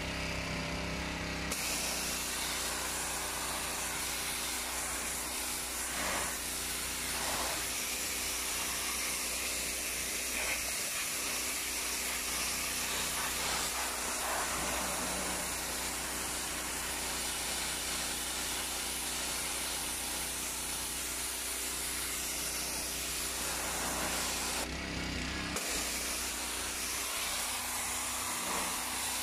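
Ferrex petrol pressure washer running steadily, its high-pressure spray hissing onto concrete steps. The spray starts about a second and a half in and cuts out briefly once near the end while the engine keeps running.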